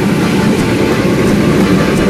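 Steam locomotive working hard with a loaded train, a loud, dense rumble with faint regular beats a few times a second.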